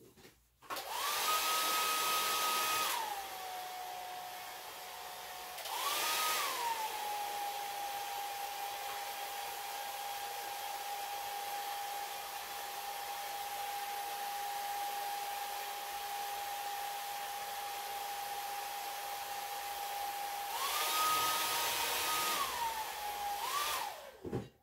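Handheld hair dryer blowing on its cool shot, unheated air. The motor whine starts high, drops in pitch after a couple of seconds, rises briefly again, then holds steady. Near the end it rises once more, drops and cuts off as the dryer is switched off.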